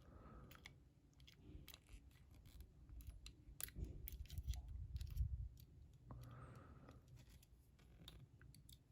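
Faint scattered clicks of metal lock picks being handled and sorted, with soft handling rustle near the middle.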